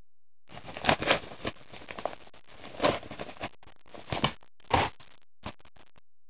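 Paper padded mailer bag rustling and crinkling as a shrink-wrapped DVD case is pulled out of it, in irregular bursts with louder crackles about a second in, near three seconds and twice between four and five seconds.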